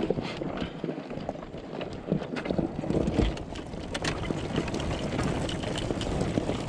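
Quad bike riding over rough dirt ground, with wind buffeting the microphone and irregular knocks and rattles from the machine and the terrain.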